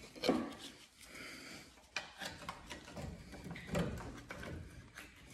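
Steel pry bar scraping and knocking against a front disc-brake caliper and rotor as it is levered to push the caliper piston back. Uneven small scrapes and clicks, with one sharp metal click about two seconds in.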